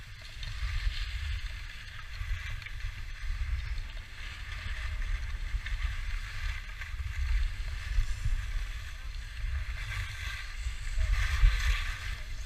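Skis sliding and scraping over packed snow in a steady hiss that swells near the end, over wind rumbling on the microphone.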